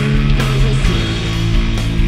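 Rock band playing live: electric guitars holding sustained chords over drums, the chord changing about a second in.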